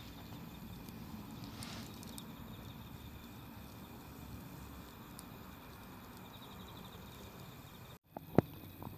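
Wood campfire burning with a low steady rumble, while insects keep up a steady high chirping. Near the end, after a momentary break in the sound, the fire gives a sharp loud pop and a smaller crackle.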